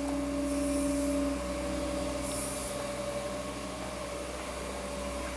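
Steady electric hum of a gem faceting and polishing machine's motor, with a higher tone that drops away about a second and a half in. A short hiss comes twice.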